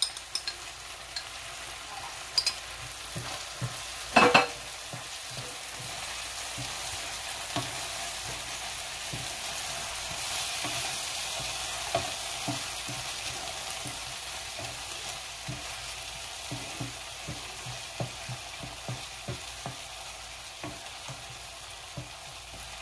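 Diced onions and tomato purée sizzling in oil in a nonstick frying pan, stirred with a wooden spatula that scrapes and clicks against the pan. Near the start a fork scrapes the purée out of a bowl, and there is one sharp knock about four seconds in.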